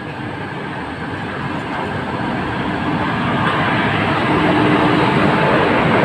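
Running noise of a moving passenger train heard from on board: wheels on the rails and rushing air, growing steadily louder.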